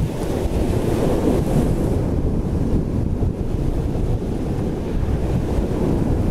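Wind blowing on the camera's microphone, a steady low rush with irregular buffeting, mixed with the wash of choppy sea waves.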